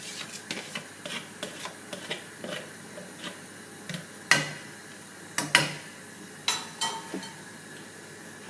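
A spoon tapping and scraping against a cooking pot as rice is stirred in boiling water: scattered light clinks, with a few louder knocks about halfway through, over a steady faint hiss.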